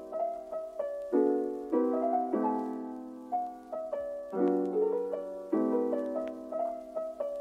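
Background piano music: chords struck every second or so and left to fade.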